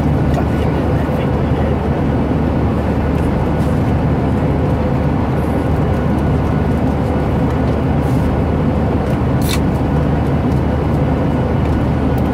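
Steady, loud cabin noise of an airliner in flight, an even rumble of engines and airflow, with one brief sharp tick about nine and a half seconds in.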